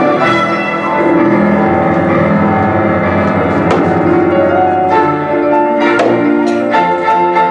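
Instrumental music with bell-like tones, held notes and a few sharp strikes.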